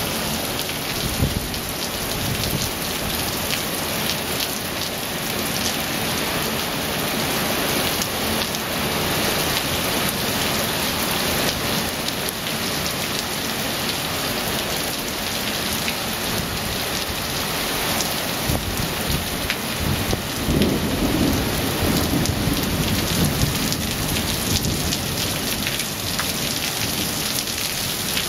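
Heavy rain pouring steadily onto paving and brick steps in a thunderstorm, with a low rumble of thunder swelling up about two-thirds of the way through.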